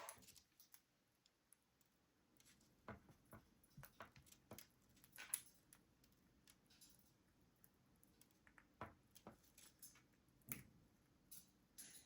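Faint, scattered light clicks and taps, about a dozen, against near silence: a green-cheeked conure handling the rings and stand of a ring-toss toy.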